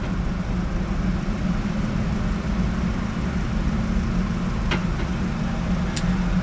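Steady machinery drone with a constant low hum, and two light clicks near the end.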